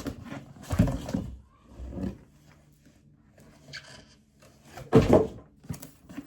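Handling noises: a few knocks and thumps of objects being moved about, the loudest about five seconds in, with quiet stretches between.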